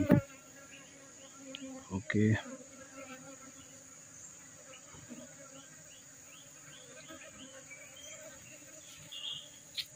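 Insects droning steadily in one high, even tone in the forest, with faint chirps over it.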